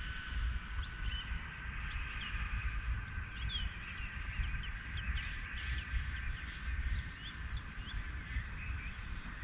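Birds calling in a rapid string of short chirps, over a low rumble and the faint whine of a distant FPV quadcopter's motors that fades about a second in.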